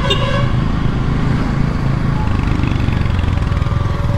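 Motorcycle engine running steadily while riding, a constant low rumble.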